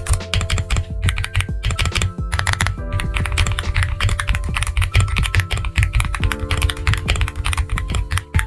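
Fast typing on a mechanical keyboard: a dense, steady run of keystroke clacks, heard over background music.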